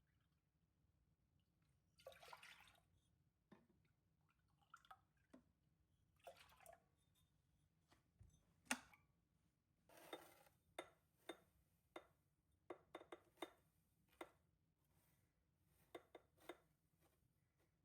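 Kitchen handling sounds: light clinks of glass and dishes set down and touched, with a few short splashes of liquid.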